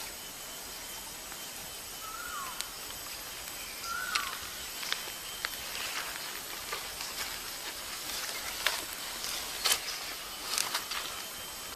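Sharp crackles and clicks as charred skin is picked off a roasted catfish on a bamboo skewer, loudest in the second half. Under them is a steady outdoor hiss of insects, with two short falling bird chirps about two and four seconds in.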